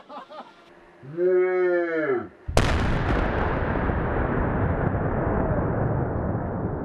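Dynamite explosion: a sudden sharp blast about two and a half seconds in, followed by a long echo that slowly fades. Before the blast, a pitched tone rises and falls for about a second.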